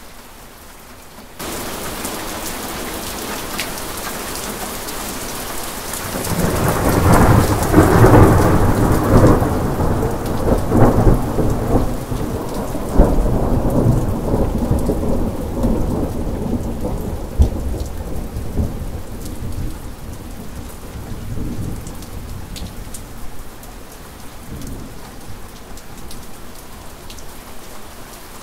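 Steady rain, its hiss stepping suddenly louder about a second in. Then a long roll of thunder builds about six seconds in, loudest for a few seconds with sharp cracking peaks, and slowly rumbles away over the next fifteen seconds while the rain goes on.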